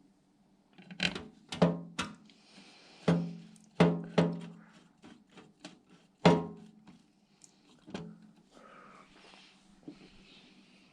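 Sharp metallic knocks on a PC case, each ringing briefly with a pitched tone: about eight strikes between one and eight seconds in, over a steady low hum.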